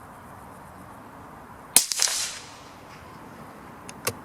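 A single shot from a CZ 457 .22 LR bolt-action rifle firing a CCI Stinger hyper-velocity round. It is a sharp crack about two seconds in, with a short trailing echo, followed near the end by a few light clicks.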